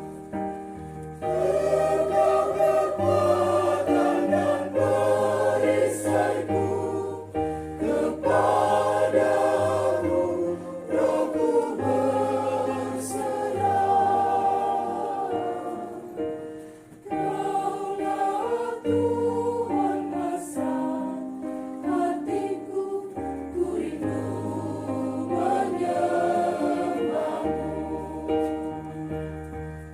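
Church choir singing a hymn in several voices over a held bass line that changes note every second or two, swelling in about a second in.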